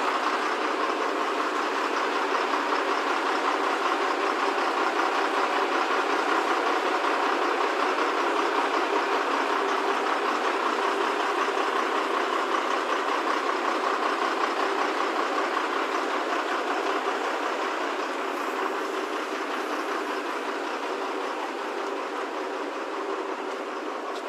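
Truck-mounted hydraulic crane running steadily as it lifts a boat: the truck's engine and crane hydraulics working with a continuous mechanical drone. It grows slowly quieter over the last several seconds.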